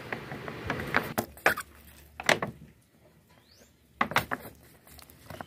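Handling noise from a water-filled plastic bottle turned by hand on a concrete floor: a few separate sharp clicks and knocks, with a quieter stretch in the middle.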